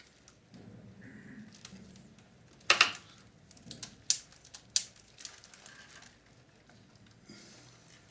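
Handling noise from the opened radio cassette recorder: one loud clack of hard plastic about three seconds in, then a few sharp clicks and small ticks as parts of the mechanism are moved.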